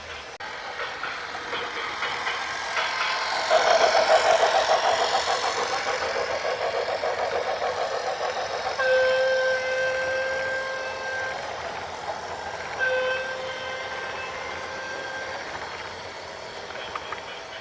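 A train passing with a rapid rhythmic clatter that swells to its loudest about four seconds in and fades away, then a horn sounds one long steady blast and, a little later, a second broken blast.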